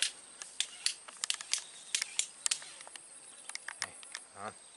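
A freshly hooked fish flapping on the line and dragged through grass and leaves: an irregular run of sharp ticks and crackles. A steady high insect drone runs behind.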